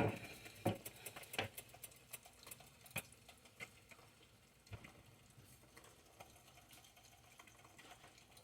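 Oil in a frying pan crackling faintly, with scattered small pops, as eggs fry over tortilla strips. A sharp clack sounds right at the start.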